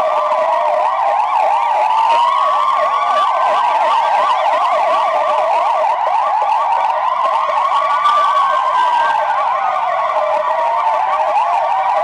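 Many police car sirens sounding at once in a loud, continuous din. Slow wailing sirens rise and fall over several seconds, layered with the fast yelping of other sirens.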